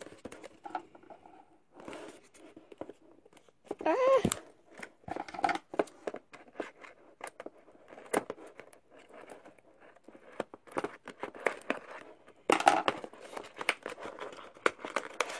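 Scissors snipping and scraping along the seal of a cardboard box, with the cardboard rustling and crinkling as it is handled and pried open; the handling gets busier near the end.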